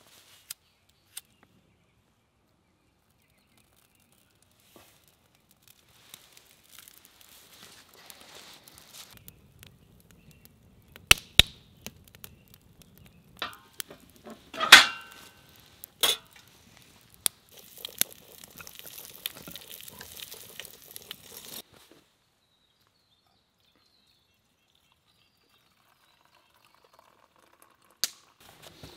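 After several seconds of near silence, a wood campfire crackles and pops in a steel fire ring. A few sharp, loud pops come through the middle, followed by a stretch of hissing, and then the sound cuts off suddenly. A single sharp click comes near the end.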